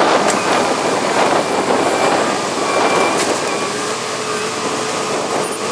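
Heavy construction machinery running: a steady, dense mechanical din with a few faint clicks, and a steady hum that comes in about four seconds in.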